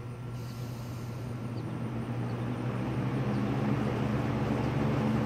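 Vintage first-generation Lakewood P-237 electric fan switched to high: its motor hums steadily while the rush of air from the blade grows gradually louder as it spins up to speed.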